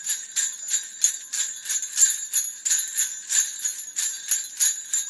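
Jingle bells shaken in a steady, even rhythm, about three shakes a second, bright and high with nothing low underneath.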